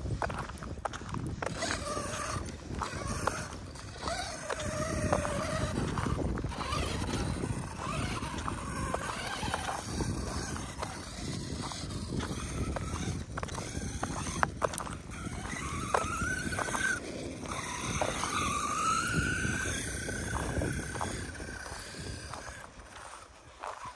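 Footsteps crunching on gravel with a dense clatter of small stones, and the whine of an Arrma Kraton 6S RC truck's electric motor rising and falling in pitch, clearest in the second half.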